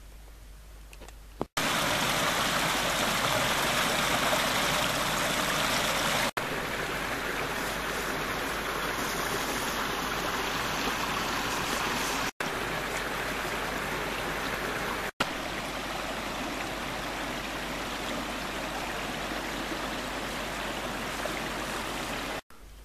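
Small forest stream running, a steady rush of flowing water. It starts about a second and a half in, cuts out briefly three times between takes, is loudest in the first few seconds and stops abruptly near the end.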